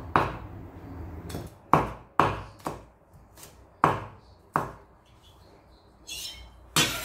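Kitchen knife chopping garlic on a cutting board: about eight sharp, irregularly spaced chops.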